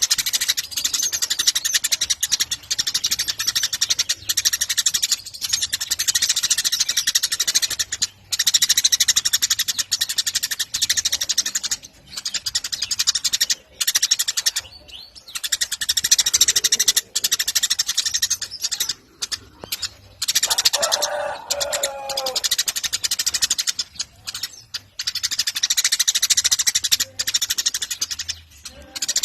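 Eurasian tree sparrows chirping rapidly and continuously in a dense, high chatter, broken by short pauses, with a brief lower, falling note about two-thirds of the way through.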